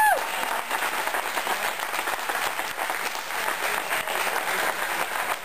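Indoor crowd applauding steadily. A loud electronic tone dies away with a falling pitch right at the start.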